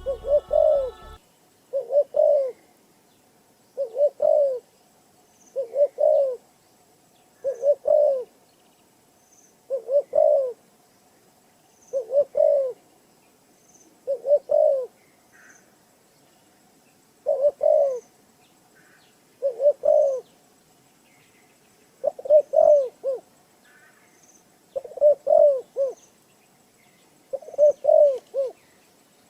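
A dove cooing over and over: a short low phrase of a few coos, repeated about every two seconds.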